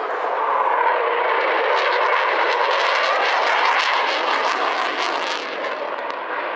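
Eurofighter Typhoon's twin jet engines in afterburner, a loud steady roar as it flies overhead. A rapid crackling joins about two seconds in and dies away shortly before the end.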